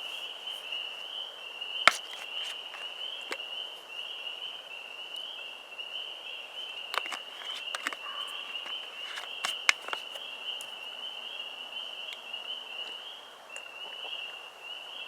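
A steady, high-pitched chorus of frogs calling together, with a few scattered sharp clicks and knocks.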